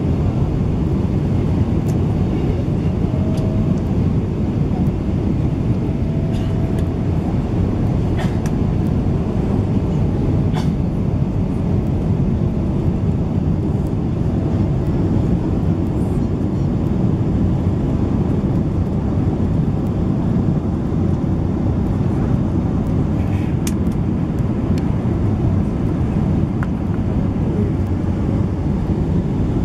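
Steady low cabin roar inside a Boeing 777-300ER on approach with flaps extended: airflow over the fuselage and wing and the GE90 engines, heard from a window seat over the wing.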